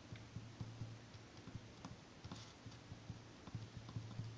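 Ballpoint pen writing on paper: faint, irregular little clicks and scratches as the letters are formed, over a faint steady low hum.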